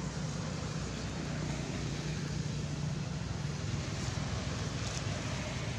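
Steady low rumble with a hiss of background noise, with no distinct events.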